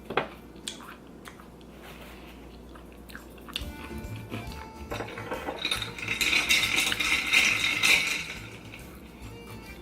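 Close-mic chewing of a large mouthful of cheese-stuffed pasta shell: wet, smacking mouth sounds that build from a few seconds in and are loudest near the end before easing off. A sharp clink of cutlery on a plate comes just after the start, with light background music throughout.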